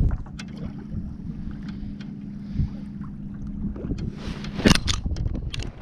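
Wind buffeting the microphone over choppy waves lapping against a kayak hull: a steady low rumble, with one short, loud rush about four and a half seconds in.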